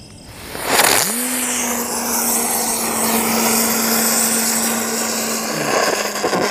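A lit spinning ground firework (the 'Rumba Dance') ignites about half a second in with a sudden rush of sparks, then spins with a loud, steady hiss. Over the hiss is a low whine that rises as it spins up and then holds steady.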